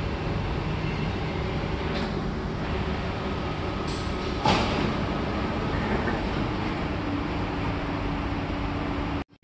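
Steady rumble and hum inside an SMRT C151C train car, with a few light clicks and one sharper knock about halfway through.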